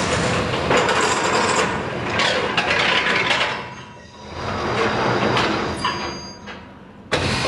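Rebar cage welding machine at work: a loud, dense mechanical clatter and hiss of steel. It dips briefly about four seconds in and again near the end.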